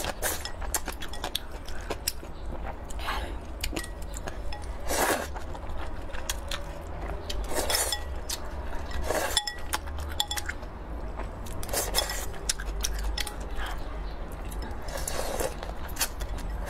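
Slurping spicy broth and noodles from a porcelain bowl, about five half-second slurps. Between them come chewing and chopsticks clicking against the bowl.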